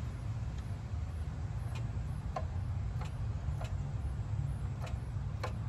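A few faint, sharp clicks at irregular intervals as the engine's crankshaft is nudged in small steps to find exact top dead center, over a steady low background hum.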